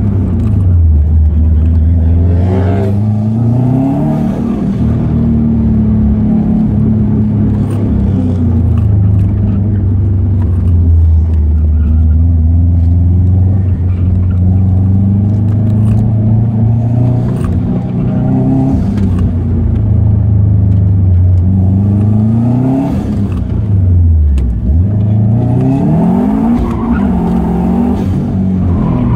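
2006 Subaru Impreza WRX STI's turbocharged 2.5-litre flat-four, heard from inside the cabin, pulling hard on an autocross run. The engine note climbs a few seconds in, holds steady through long stretches, then drops sharply and climbs again near the end as the car slows and accelerates between cones.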